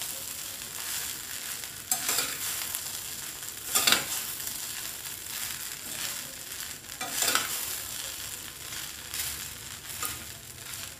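Spatula stirring and scraping poha (flattened rice with fried potato) in a stainless steel pan, with a few louder scraping strokes over a steady faint sizzle of the mix frying on the gas flame.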